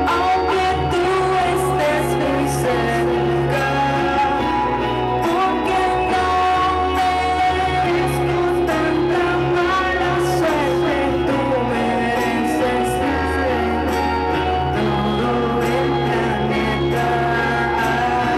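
Live pop song: a woman singing over strummed acoustic guitar and electric guitar, with a band playing steadily underneath.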